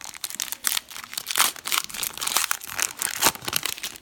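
Trading-card pack wrapper being crumpled in the hand: a dense run of irregular crinkling and crackling.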